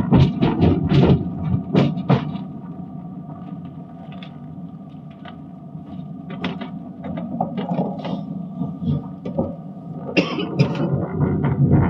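Road and engine noise inside a moving car's cabin: a steady low hum with scattered sharp knocks and rattles, bunched in the first two seconds and again near the end.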